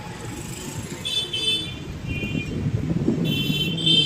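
Road traffic: a steady rumble of passing vehicles that swells near the end, with a short vehicle horn toot about a second in and a longer one near the end.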